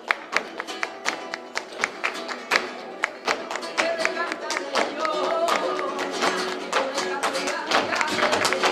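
Flamenco bulerías: a steel-less classical flamenco guitar strummed and picked under fast, rhythmic palmas (hand clapping), with a few short wavering sung phrases in the middle.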